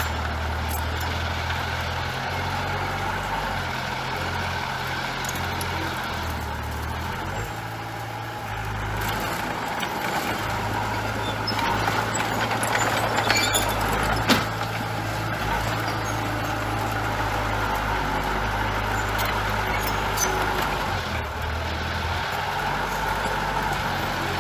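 Diesel engines of heavy earthmoving machinery running steadily, with a few sharp metallic knocks near the middle.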